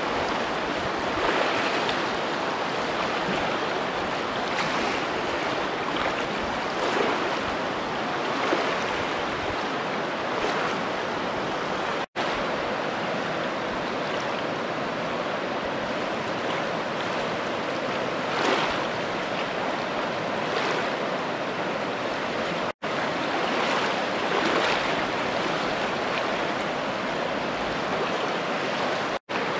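Steady rush of falling water from a waterfall or stream, with small irregular swells. It drops out for an instant three times.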